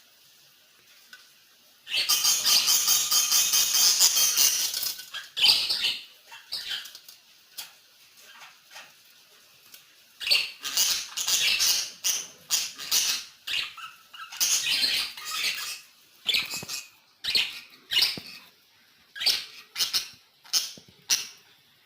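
Pet birds chirping and chattering in bursts of rapid high-pitched calls. One long burst starts about two seconds in, then quieter single chirps, then more bursts from about ten seconds on.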